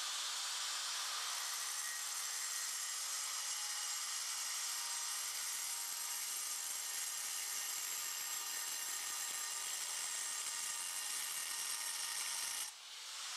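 Handheld angle grinder with a diamond blade cutting dry through a granite slab along a curved sink cutout line: a steady high whine over gritty grinding noise. It dips briefly near the end, then picks back up.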